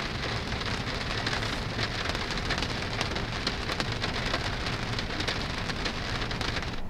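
Heavy rain drumming steadily on a car's roof and glass, heard from inside the cabin as a dense patter of countless drops.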